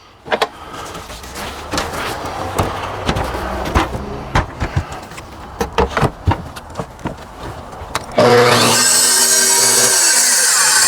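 Track saw handled between cuts: a string of irregular knocks and clicks against the track and wall sheathing. About eight seconds in, the circular track saw starts suddenly and runs loud and steady as it cuts through the sheathing.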